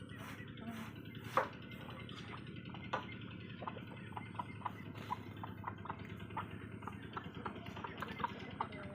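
A scattered series of short wet clicks and plops in water, sparse at first, then quickening to about two or three a second after about three seconds, with a few louder ones among them.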